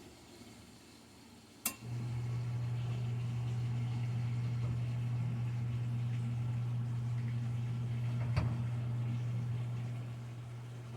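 A sharp click, then a water pump starting straight after it and running with a steady low hum, after its 40-60 pressure switch was replaced. A second click comes about eight seconds in, and the hum eases a little near the end.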